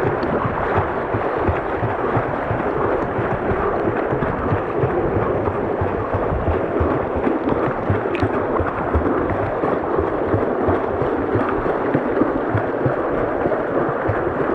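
Fast river current rushing and splashing right against a camera at water level, a steady churning wash with an uneven low rumble of water and wind buffeting the microphone.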